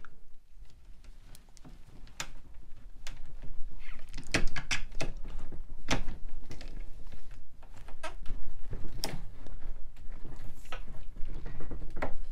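A blade being worked into a chair-leg joint to cut through hardened polyurethane construction adhesive: irregular sharp clicks, knocks and crunches, starting about two seconds in.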